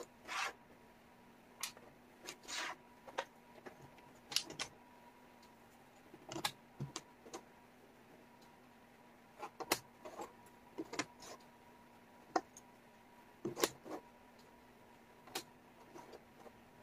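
Wooden jigsaw puzzle pieces tapping and sliding on a table as they are picked up and fitted together: irregular clicks and short scrapes, over a faint steady hum.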